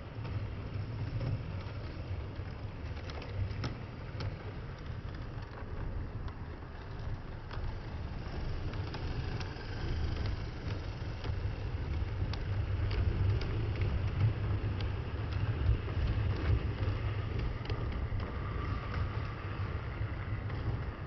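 OO gauge model train, a class 37 diesel locomotive hauling coaches, running past on the track. A steady low motor hum is overlaid with irregular wheel clicks over the rail joints, growing louder in the second half as the coaches pass close.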